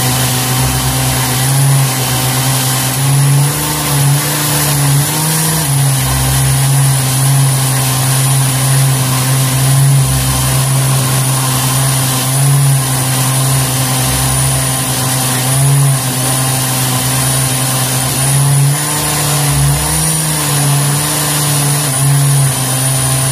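Countertop blender running at speed, its motor giving a loud, steady hum that dips and rises slightly in pitch as it churns a thick liquid ice-cream mixture.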